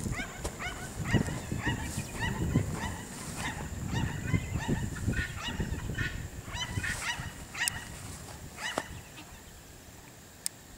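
A flock of helmeted guineafowl calling: many harsh, repeated cries overlapping one another, dying away about nine seconds in.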